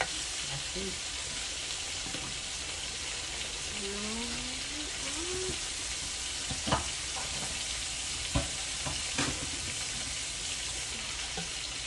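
Food sizzling steadily in hot oil in a pan, with a few sharp clicks of a utensil against the pan near the middle.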